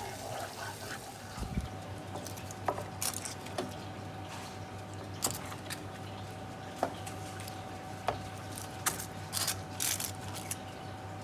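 Food frying in a pan: faint, scattered pops and crackles of hot oil, about a dozen over the stretch, over a steady low hum.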